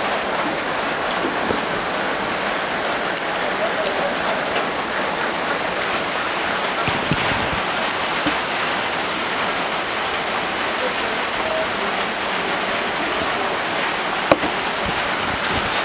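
Heavy rain falling on a tin roof, a steady even noise. One sharp knock near the end.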